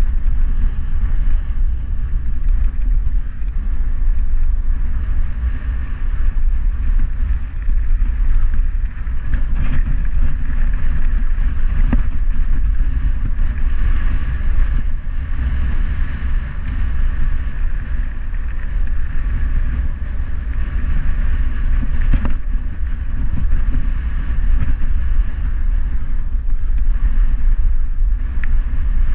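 Steady wind rumble on an action camera's microphone while riding along a bumpy dirt trail, with a few short knocks from the ride over the ground.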